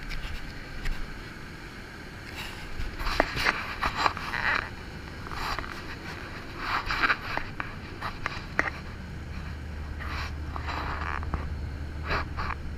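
Steady low drone of an airliner cabin in flight, with irregular rustling and scraping close to the microphone.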